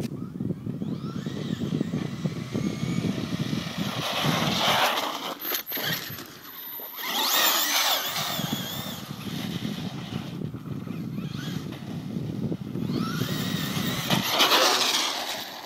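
Traxxas Stampede VXL RC monster truck's brushless Velineon motor whining, rising and falling in pitch in repeated bursts of acceleration, with a steady low rumble underneath.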